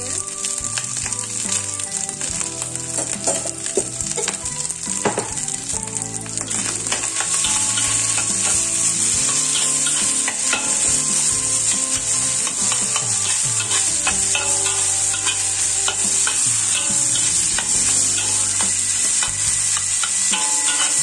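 Nasi goreng (fried rice) sizzling in a black wok while a metal spatula stirs, tosses and scrapes it, with many small clacks of the spatula against the pan. The sizzle gets louder about seven seconds in.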